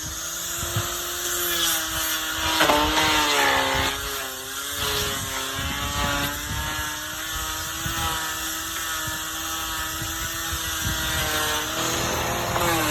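Electric power tool running steadily, its pitch sagging briefly now and then as it bites into the wood.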